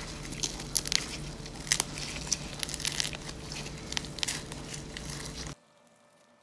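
Crisp baked crust of a shio-pan salt butter roll crackling and crinkling in quick irregular clicks as hands squeeze and tear it open, over a low steady hum. The sound cuts off suddenly near the end.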